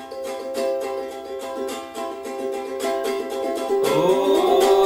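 Ukulele strummed in a steady rhythm, playing a funny little tune; a singing voice comes in near the end.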